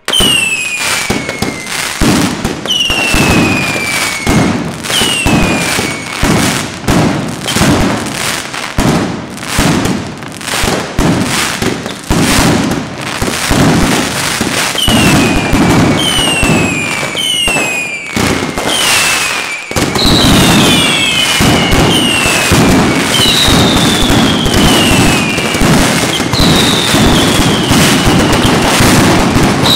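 Mascletà firecrackers going off in dense, rapid strings of sharp bangs, with falling whistles from whistling pyrotechnics every second or two. A little before twenty seconds in, the bangs merge into a continuous barrage.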